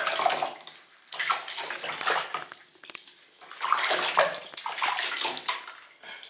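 Water splashing and sloshing in a bathtub as hands scoop and rub water over a wet toy poodle puppy's coat, in several bursts with short lulls between.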